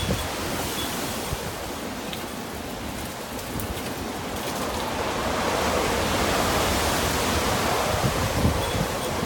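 Typhoon wind rushing steadily and swelling into a stronger gust about halfway through, with low rumbles where the gusts buffet the microphone.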